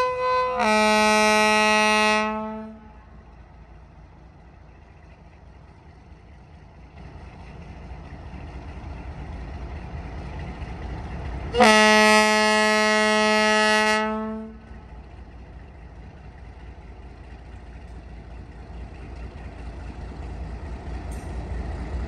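Diesel locomotive's air horn: a short blast running straight into a long one in the first few seconds, then another long blast of about three seconds near the middle. Between and after the blasts the locomotive's diesel engine runs, growing louder as the train pulls out.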